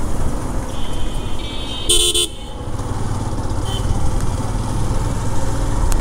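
Motorcycle engine running at low speed, with vehicle horns tooting: a thin high beep about a second in and a short, loud honk at about two seconds.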